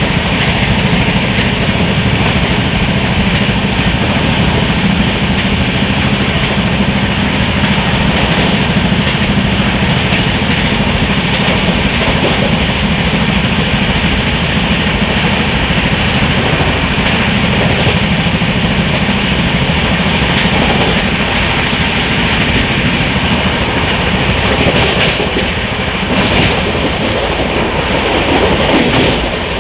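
Express train running at speed, heard from aboard the coach: a steady loud rumble of wheels on rail and rushing air. A few sharper wheel clacks come near the end.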